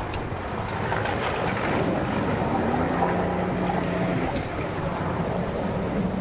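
60 hp outboard motor running in gear, pushing the bass boat up onto its trailer, with water churning at the stern.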